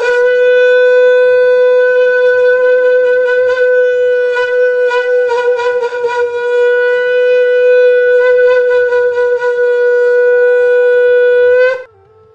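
Handmade wooden conch (shankh) blown as a trumpet in one long, steady, loud note held for nearly twelve seconds. The note wavers briefly about halfway through, then cuts off abruptly.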